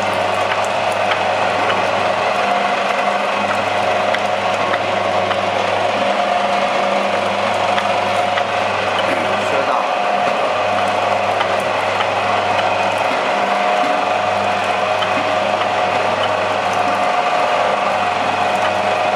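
Dumpling-making machine running steadily, its forming mechanism clattering and whirring as dumplings come off the chute, with a low hum that cuts in and out every couple of seconds.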